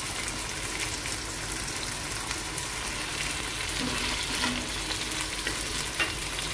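Mutton karahi sizzling in a stainless-steel karahi over a gas flame: a steady hiss scattered with many small crackles. Its liquid has cooked off, so the meat is frying in its own oil.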